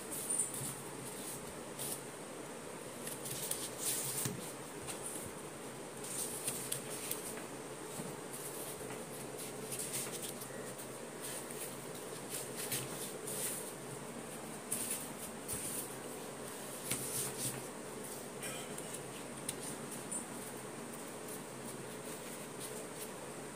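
Foam puzzle-mat tiles scraping, rubbing and squeaking against each other and the cloth underneath as hands slide and press them into place. The scratchy sounds come short and irregular over a faint steady hum.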